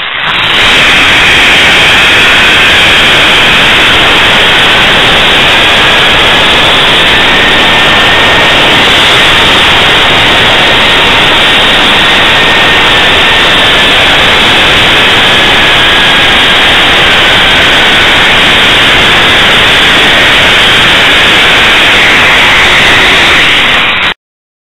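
Loud, steady rushing of wind on the microphone during a zip-line ride, with the trolley's pulley wheels whining faintly along the steel cable; the whine rises and then falls in pitch. The noise cuts off suddenly near the end.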